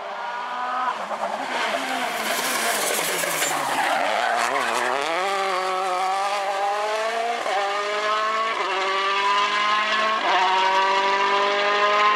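Rally car's engine dropping in pitch as it slows, with a hiss of skidding tyres, then pulling hard and revving up through about four quick upshifts.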